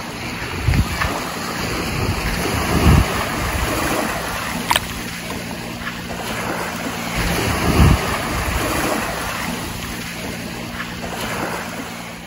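Small waves washing onto a sandy shore, with wind buffeting the microphone in several low thumps. A faint steady low hum joins about halfway through.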